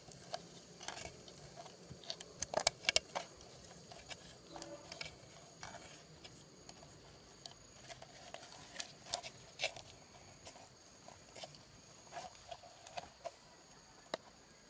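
Scattered soft clicks, crackles and taps of fingers prying and breaking apart a split bamboo shoot, with a cluster of sharper clicks about two and a half seconds in.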